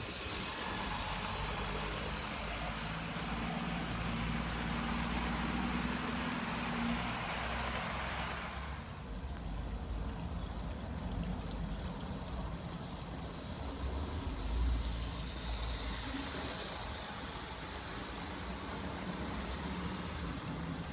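Model trains running on garden railway track: the wheels and motors rumble along the rails, louder and brighter for the first eight seconds or so while a locomotive passes close, then quieter and duller as the train runs further off.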